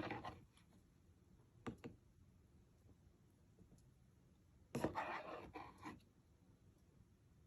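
Faint handling noises while making slime: two light taps a little under two seconds in, then about a second of scratchy scraping around five seconds in.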